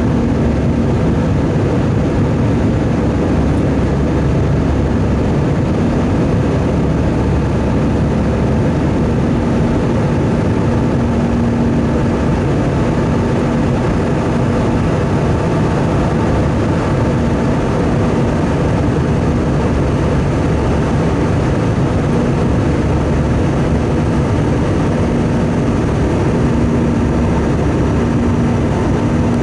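Steady engine and airflow noise of an Airbus A320 in flight, heard inside the cabin, with a low hum that fades in and out.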